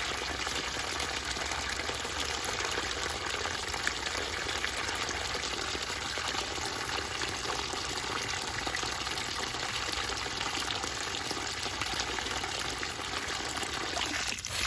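Spa water running steadily out of an opened fitting, an even, unbroken rush of water.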